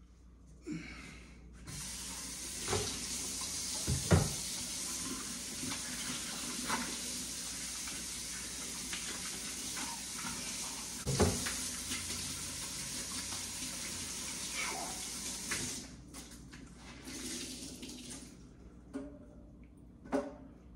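Kitchen faucet running into a stainless-steel sink: the water comes on about two seconds in and runs steadily until it is shut off about sixteen seconds in, with a few knocks of things handled in the sink. Quieter handling sounds follow.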